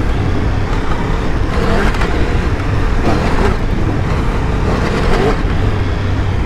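A Triumph Tiger 1200 Rally ridden fast on a dirt trail: its three-cylinder engine runs continuously, the revs rising and falling, under a steady rush of wind and tyre noise.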